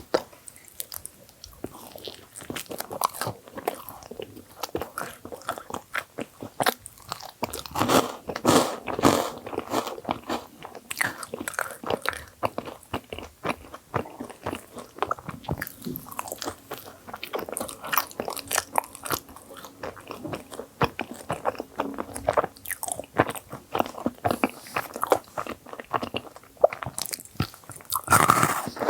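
Close-miked biting and chewing of a thick filled sandwich bagel: crisp crackling bites and mouth sounds in an irregular run, loudest about eight seconds in and again near the end.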